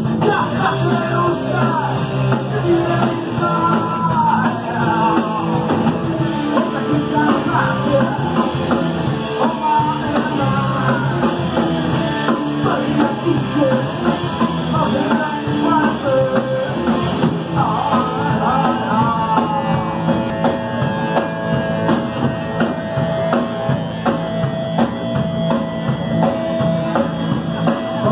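A punk rock band playing live: guitars and drum kit with a singer's vocals through the first two-thirds or so, loud and heard from within the crowd.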